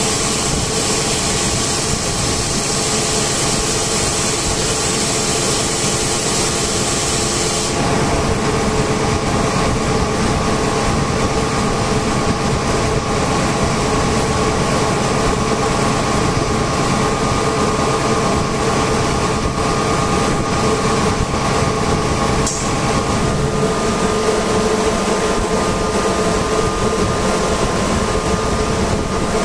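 Air compressors running steadily: a loud mechanical drone with steady whining tones, and a high air hiss that stops about eight seconds in.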